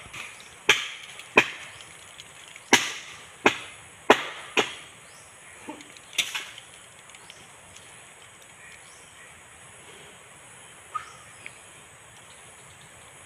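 Machete blows chopping at coconut bunch stalks up in a palm crown: a series of sharp strikes at uneven spacing over the first six seconds or so. They then stop, leaving only a couple of faint knocks.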